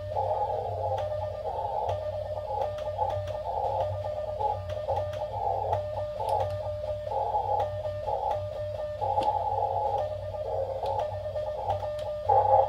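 Elecraft KX2 receiver audio tuned to the 40 m CW band: static hiss heard through a narrow CW filter, with Morse code tones at one steady pitch keying on and off. A low steady hum runs underneath.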